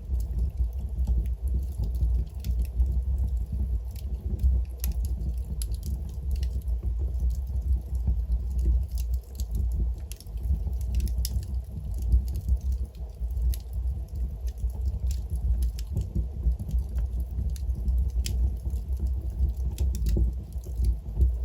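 Wood logs burning in a fireplace, crackling with frequent irregular sharp pops and snaps over a steady low rumble of the fire.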